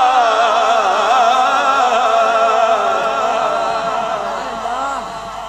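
A male voice singing a naat through a microphone in a long, wavering melismatic line, fading slowly toward the end.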